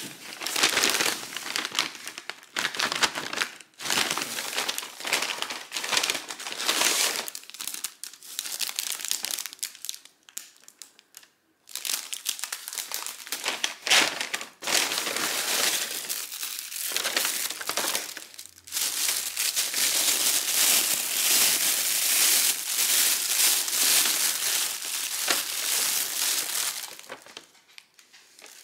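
Plastic and paper bags crinkling and rustling as they are handled and opened to unpack bakery goods, in several bouts with short pauses, then a longer unbroken stretch of crinkling that stops shortly before the end.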